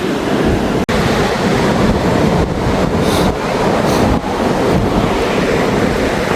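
Rough sea surf breaking on the shore, mixed with strong wind buffeting the microphone as a steady, loud rush. The sound drops out for an instant about a second in.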